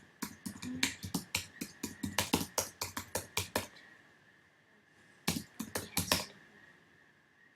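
Computer keyboard keys clicking in quick runs, about four or five presses a second for some three and a half seconds, then a second short run about five seconds in, over a faint steady high whine.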